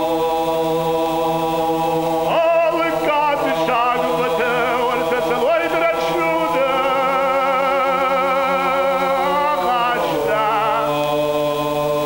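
Ossetian folk song: a male choir holds a steady drone chord while, about two seconds in, a solo male voice enters above it with a wavering, ornamented melody. Near the end the voices slide down to a new chord.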